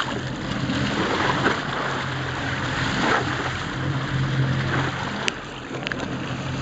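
Boat engine running with a steady low hum under rushing water and wind noise on the microphone, with two short clicks near the end.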